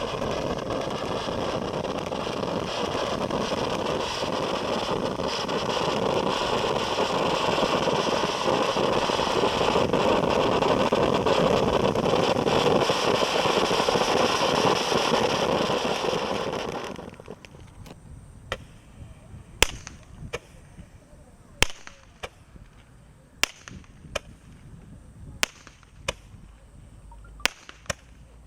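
A garden firework fountain spraying with a loud, steady hiss that grows slightly and then dies out about 17 seconds in. It is followed by single sharp cracks roughly every two seconds from a shot-firing firework.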